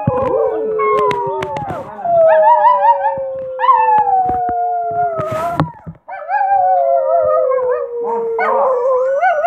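Small Chihuahua-type dog howling: a run of long, wavering howls that slide down in pitch, with a short break a little past the middle.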